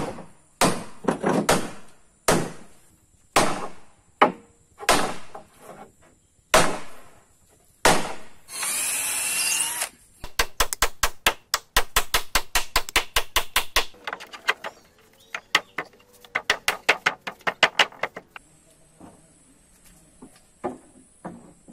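Boat-building work on wooden planks: about ten separate hammer knocks on wood, then a short whirring burst from a power drill, then long runs of rapid, even clicking at about six a second.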